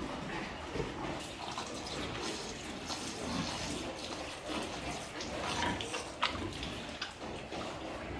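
Water running and splashing, with scattered clicks and knocks.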